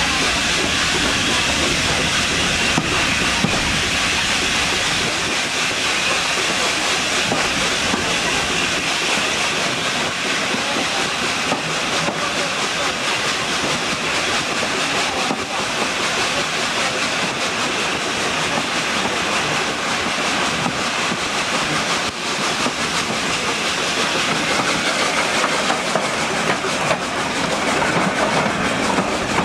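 Steam train running: a steady hiss of steam mixed with the rolling noise of the carriages on the rails, with the occasional faint click.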